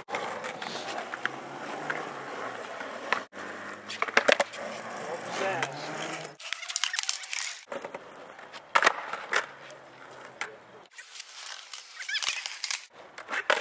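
Skateboard wheels rolling on asphalt, with several sharp clacks of the board hitting the ground. The sound breaks off and changes abruptly a few times.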